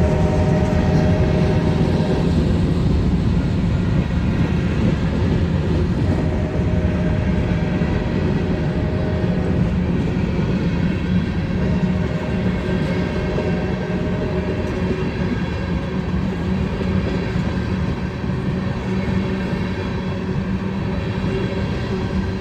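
Freight train rolling steadily through a road crossing, its wheels running over the rails. A few steady higher tones near the start fade out about two seconds in.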